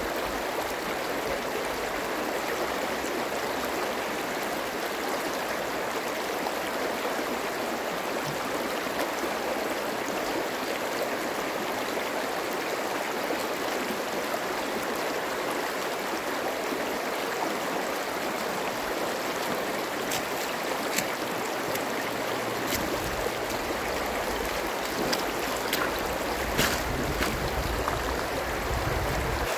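Shallow stream running steadily over pebbles and stones, a continuous rushing and babbling of water. A low rumble joins in near the end.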